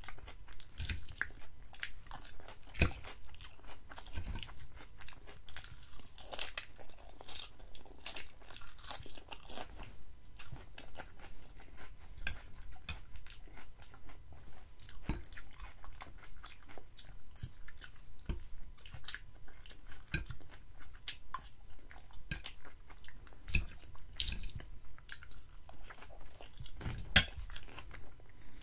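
Close-miked mouth sounds of a person chewing crisp lettuce salad: wet crunches at a steady rhythm of about two a second, with one sharper click near the end.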